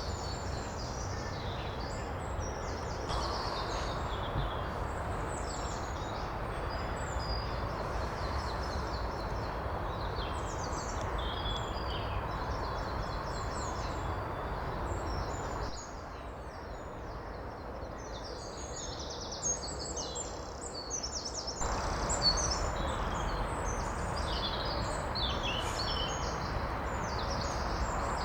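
Woodland stream running with a steady rush, many small birds singing and calling over it. The water sound drops away suddenly about sixteen seconds in and comes back just as suddenly about six seconds later.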